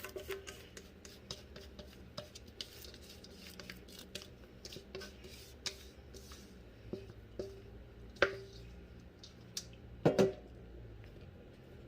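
Cake batter being scraped out of a mixing bowl into a baking pan: a run of small scrapes and clicks of a utensil against the bowl, with two louder knocks about eight and ten seconds in as the bowl is tapped.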